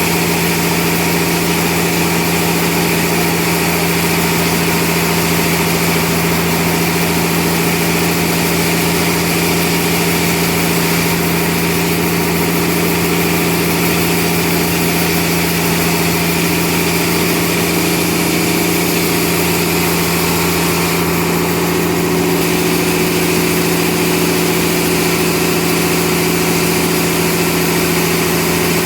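Sawmill machinery running with a steady, constant-pitched drone and an even hiss above it, without change in speed or load.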